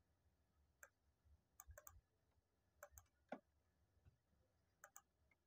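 Faint, irregular clicks from a computer keyboard and mouse during code editing, in twos and threes over near silence.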